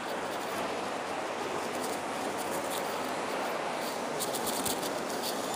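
Steady background hubbub of a busy indoor shopping mall, with a few faint ticks about four seconds in.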